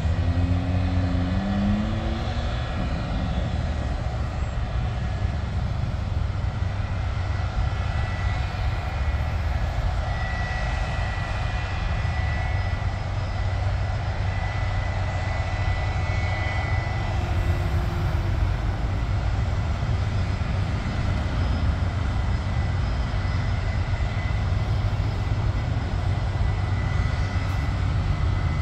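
Business-jet turbofan engines running at taxi power: a steady engine rush with a strong low rumble and a faint high whine that comes and goes.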